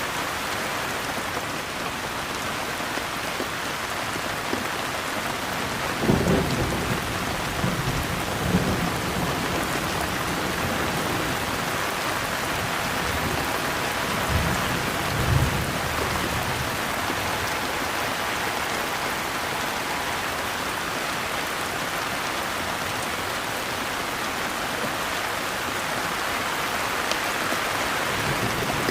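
Steady heavy rain with rolls of thunder rumbling twice, about six seconds in and again around fourteen to sixteen seconds in.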